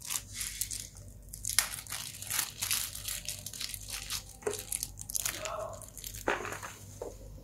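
A small clear plastic bag crinkling as fingers unwrap it, with many quick sharp crackles.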